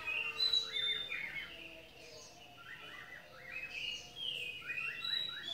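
A bird singing a repeated phrase of three or four quick chirps that rise and fall, with higher clear whistled notes, heard three times about two seconds apart.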